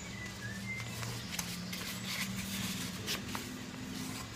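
Soft rustling and a few light taps of paper printouts and cards being handled, over a faint low hum.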